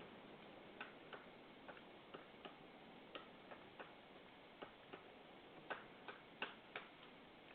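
Faint, irregular light knocks or clicks, about fourteen of them, a few of the later ones louder, over a soft background hiss.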